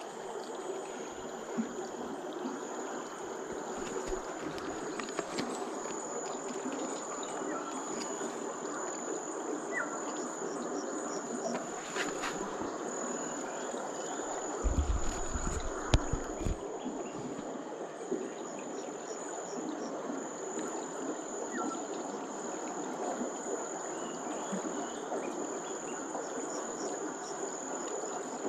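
Steady high-pitched drone of insects over the rush of a flowing river, with a few low bumps about halfway through.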